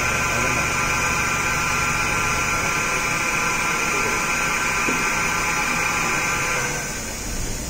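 Kitamura Mycenter 2 CNC vertical machining center's table traversing on its axis: a steady whine of several high tones over a low hum from the axis drive. The sound cuts off near the end as the motion stops.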